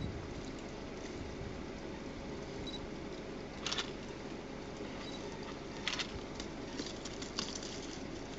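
African bush elephant browsing on a dry thorny bush, its trunk snapping and crackling twigs: a sharp crackle about three and a half seconds in, a louder one near six seconds, then a run of smaller crackles. A steady low rumble lies underneath.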